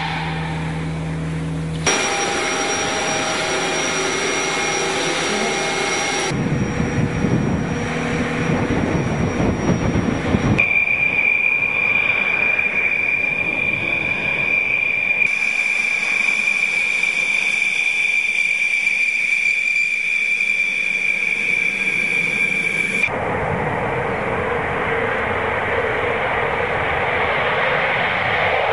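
Military jet aircraft engine noise, cut together from several pieces of footage. Through the middle a steady high whine sits over the engine noise for about twelve seconds, then gives way to a broader rush of noise.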